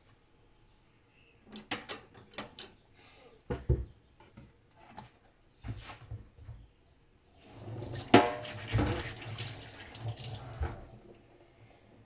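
A few knocks and clatters as a plastic cutting board is handled, then a kitchen tap running into the sink for about three seconds before it is turned off.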